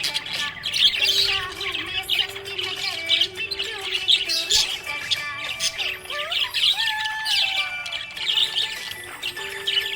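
A flock of budgerigars chirping and chattering continuously in quick, overlapping calls, with background music underneath.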